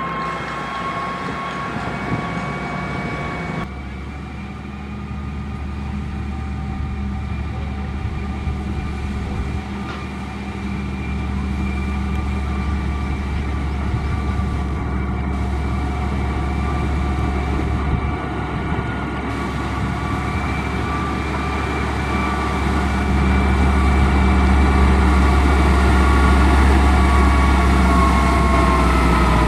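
Heavy construction machine running under steady load: a deep engine drone with a steady high whine over it. It grows louder about two thirds of the way in, and the whine starts to drop in pitch near the end.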